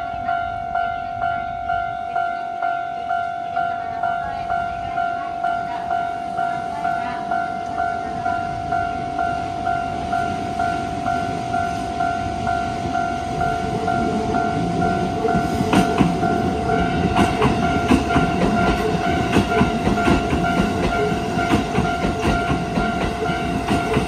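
A Japanese railway level crossing's electronic warning bell dings over and over at an even pace. From about fourteen seconds in, the rumble of a Shin-Keisei Line electric train grows as it approaches, with wheel clacks over the rail joints, and the train is passing the crossing at the end.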